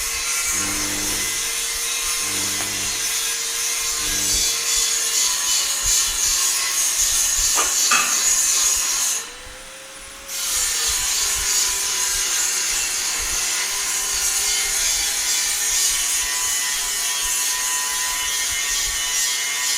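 Metalworking power tool cutting into iron: a steady, harsh, high hiss. It breaks off for about a second around nine seconds in, then starts again. A low humming tone comes and goes in the first few seconds.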